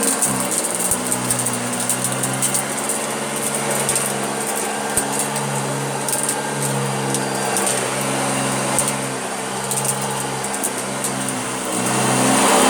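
Vintage Hoover Junior upright vacuum cleaner running steadily with its beater bar turning as it is pushed over carpet, a high hiss over a low motor hum, with scattered small clicks from debris being picked up. It grows louder near the end.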